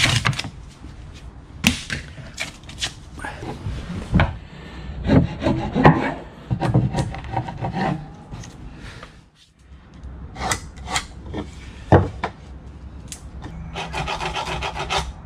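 Hand work on timber: wooden pieces and hand tools knocking and tapping at irregular moments, with a stretch of steady rubbing on wood near the end.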